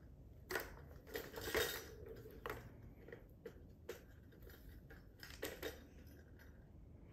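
Plastic balls clattering around a three-tier cat track toy as a cat bats at it, in irregular short bursts, the busiest about a second in.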